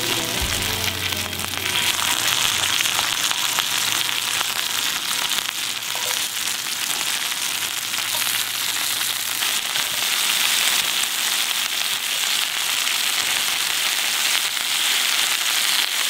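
Chicken wings frying in hot oil in a frying pan: a steady, dense sizzle full of fine crackles.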